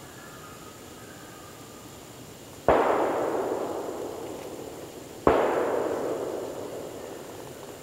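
Two gunshots about two and a half seconds apart, each echoing through the woods and dying away over a couple of seconds: a hunter shooting a coyote.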